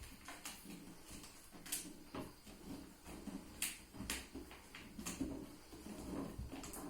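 Light, sharp clicks and knocks at irregular intervals, about ten of them, like objects being handled in a small room.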